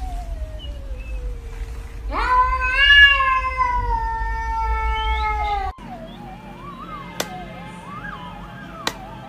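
A cat yowling in long drawn-out meows: a falling call first, then about two seconds in a louder yowl that rises sharply, holds for about three and a half seconds, and cuts off suddenly. After it come fainter wavering calls and two sharp clicks.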